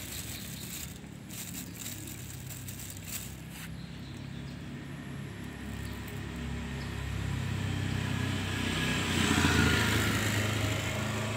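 A motor vehicle engine running, growing louder to a peak about three-quarters of the way through and then easing off. In the first few seconds there is light crinkling of a plastic bag as a cat noses through it.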